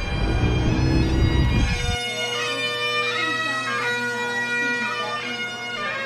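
Highland bagpipes playing a tune over their steady drones. A low rumble underneath stops abruptly about two seconds in.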